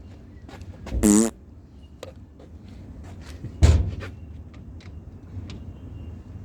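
Hand-tool work on heavy generator cable terminations: scattered metallic clicks and knocks, a short wavering squeal about a second in, and a heavy thump a little before four seconds.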